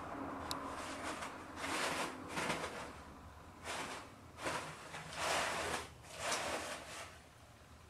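Loose toilet paper rustling in about six short bursts as a kitten pounces and rolls in the pile.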